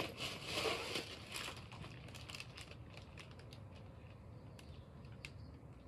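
Plastic shopping bag rustling and crinkling as it is rummaged through, loudest in the first second and a half, then dying down to a few faint clicks and crinkles.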